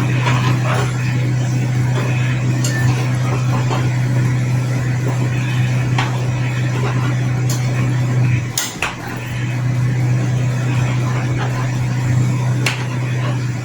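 A steady low hum, with a few sharp clinks of metal utensils against cookware. The hum drops out briefly about eight seconds in, then resumes.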